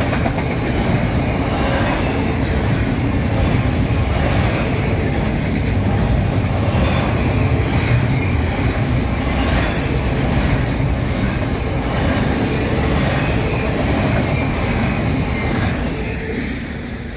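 Double-stack intermodal freight cars rolling past, loud and steady: steel wheels rumbling on the rails, with a couple of brief high wheel squeals about ten seconds in. The rumble fades near the end as the last car goes by.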